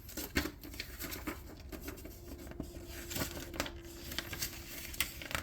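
Packaging being handled: crinkling and rustling with scattered small taps and clicks. A faint steady hum comes in about two seconds in and lasts about three seconds.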